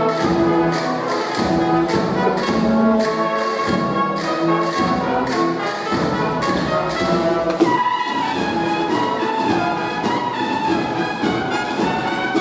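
Cornet-and-drum band (cornetas y tambores) playing: the bugles hold sustained melody notes over a steady beat of drums. A sharp drum hit comes a little past halfway.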